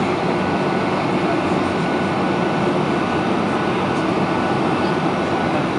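Steady cabin noise of a Boeing 737-800 in flight, heard from a window seat: a constant rush of airflow and CFM56 engine noise, with a faint steady high whine.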